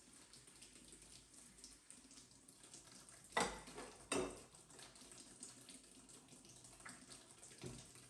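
Dishes being hand-washed in a stainless steel kitchen sink: faint wet rubbing and small clinks of ceramic plates, with two loud clatters of crockery, one a little after three seconds in and another just after four.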